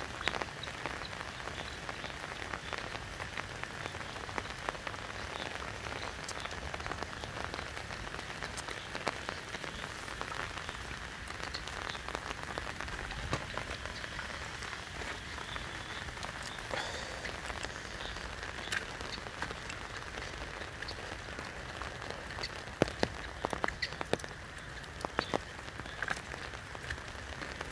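Steady rain falling on river water and the wet bank, with many scattered sharp drop ticks and a few louder taps near the end.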